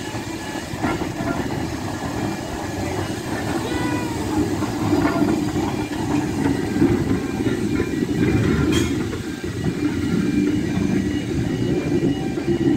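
Steam saddle-tank locomotive and its train of coaches passing close by: a steady rumble of wheels on rail, with a single sharp click about two-thirds of the way through.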